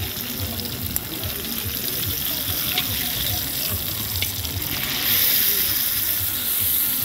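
Beef, onions and vegetables sizzling on a wide black iron pan over coals, a steady hiss that swells a little near the end. A fork clicks against the pan a few times as the meat is turned.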